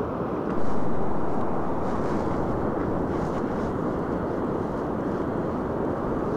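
Steady rushing noise of surf and wind on the open beach, stepping up slightly about half a second in.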